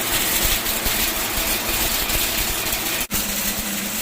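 Motorised rice winnowing machine running steadily: a motor hum under a loud rushing of air and grain. The sound breaks off for an instant about three seconds in, then carries on unchanged.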